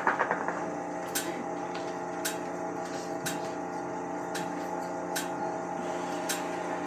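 Steady machine hum filling the room, with a faint sharp tick about once a second.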